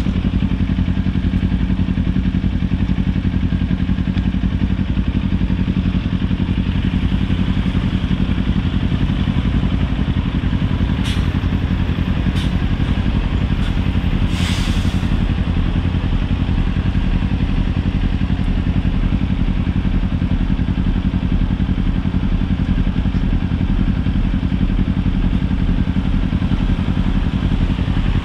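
Kawasaki Ninja 400's parallel-twin engine running steadily under the rider, with a few sharp clicks and a short hiss about halfway through.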